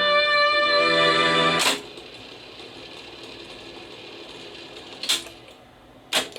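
Orchestral string music playing back from a Technics RS-676US cassette deck cuts off with a click under two seconds in. A steady hiss follows, broken by two sharp clicks about a second apart near the end.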